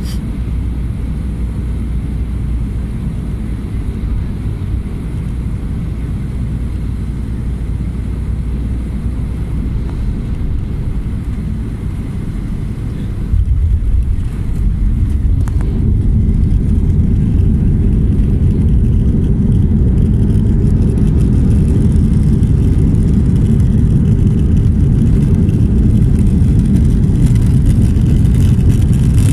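Cabin noise of a jet airliner on short final: a steady low rumble of engines and airflow. About 13 seconds in the wheels touch down with a sudden jolt, and the noise then rises into a louder, rougher roar of rollout and reverse thrust that holds to the end.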